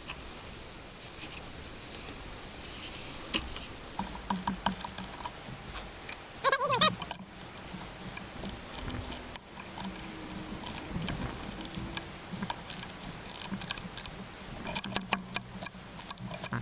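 Ratchet and socket clicking and small metal tool clatter as bolts are run back in by hand, in irregular runs of quick clicks. A short pitched yelp-like call breaks in about six and a half seconds in.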